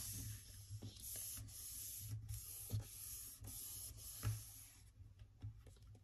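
Hands rubbing and smoothing freshly glued paper onto a paper sheet on a tabletop: a run of faint, short rubbing strokes with a few soft taps, stopping about five seconds in.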